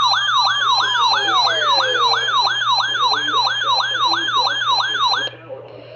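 Siren played over a radio alert broadcast, yelping in fast falling sweeps about three times a second, with a slower wail rising and falling under it in the first two seconds. It cuts off suddenly about five seconds in, leaving faint radio hiss.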